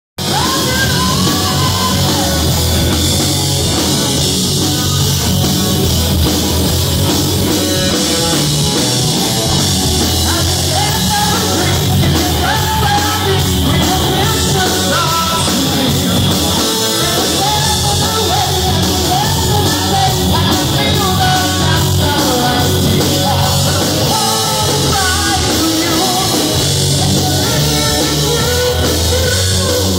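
A rock band playing live and loud, with drums and electric guitar and a wavering lead line over the top.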